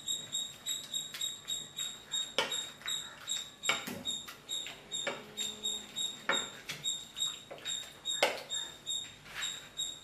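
Wooden masher pressing boiled tapioca in a steel pot: a regular squeaky rubbing, about three strokes a second, with a few louder knocks of the masher against the pot.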